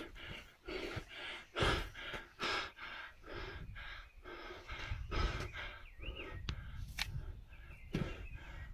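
A man panting hard, taking quick, heavy breaths about two a second as he climbs a steep mountain trail: he is out of breath from the climb.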